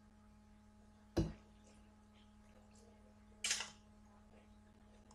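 Two sharp knocks, about a second in and again about two and a half seconds later, the first dull and heavy, the second brighter and clinking, over a steady low hum.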